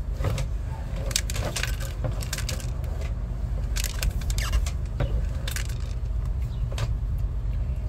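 A steady low engine hum runs under a stream of irregular sharp clicks and crackles.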